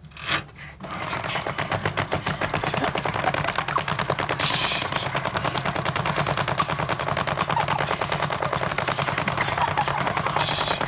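Hard rubber ceiling-fan blades spinning and slapping against a contestant in a fast, even string of hits, many per second, starting about a second in over a low steady hum.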